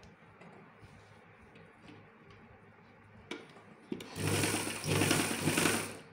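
Domestic sewing machine: two short clicks, then the machine runs for about two seconds, stitching through cloth, and stops.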